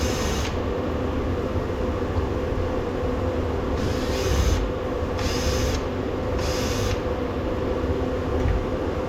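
Steady hum of a workshop heater running. Three short, hissing bursts of noise stand out about four, five and six and a half seconds in.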